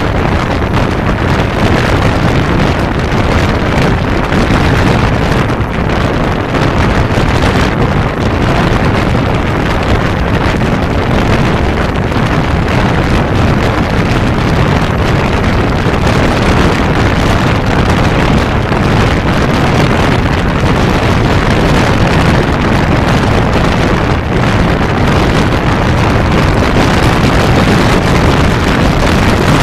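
Loud, steady wind noise on the microphone of a motorcycle at highway speed, over the running of a 1992 Kawasaki Zephyr 550's air-cooled inline-four engine.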